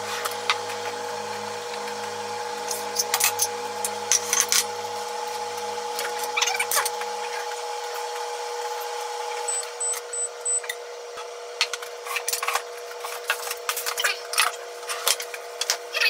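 Wooden chopsticks clicking and scraping against a frying pan and dishes as stir-fried noodles are served out, in irregular taps that come thicker in the second half, over a steady hum and hiss.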